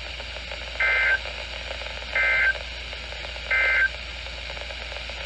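Three short bursts of warbling two-tone digital data from NOAA Weather Radio, evenly spaced about a second and a half apart. These are the Emergency Alert System's SAME end-of-message codes, which close an alert.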